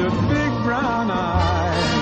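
Background music from a pop song, in a stretch without sung words: a wavering melody line over a steady bass.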